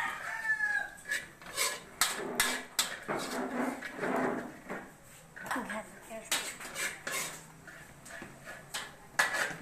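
Metal utensil clanking and scraping against a wok in irregular strikes as ingredients are stirred in it.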